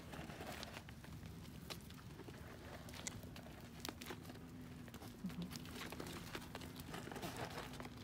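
Deer feeding at close range: scattered light clicks and crinkly rustles of hooves tapping on stone paving and mouths nibbling at food.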